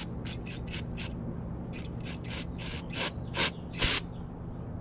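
Aerosol brake cleaner sprayed in about a dozen short spurts through a small carburetor's clogged pilot jet, the longest spurt near the end, using the pressure to force the crud out of the jet. A steady low hum runs underneath.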